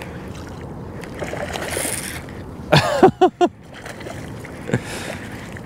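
Surface splashing as small bluefish strike at a topwater walk-the-dog lure, over the light clicking of a baitcasting reel being wound and water lapping at the kayak. A short wordless exclamation, falling in pitch, breaks in near the middle.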